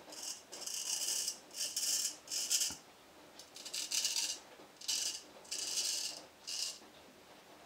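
Dovo Black Star 5/8 straight razor scraping through lathered stubble: about eight short, scratchy strokes with brief pauses between them, on the first pass with the grain.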